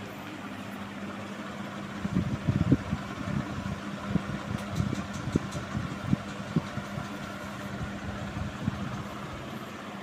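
Panasonic F-560Z2 56-inch industrial ceiling fan running at high speed, with a steady motor hum and a rush of moving air. From about two seconds in until near the end, irregular low rumbles and thumps break in over it, louder than the fan.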